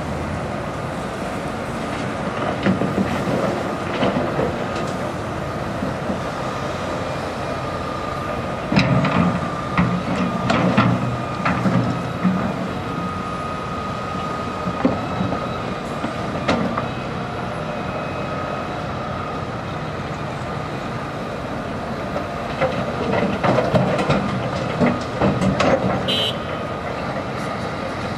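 Hitachi Zaxis 350 LCN tracked excavator working: its diesel engine runs steadily under a constant high hydraulic whine. Two spells of clattering and knocking, about a third of the way in and again near the end, are the bucket digging and dropping soil and rock into a dump truck.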